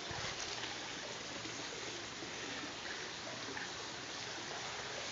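Water trickling steadily over the stones of a small garden waterfall.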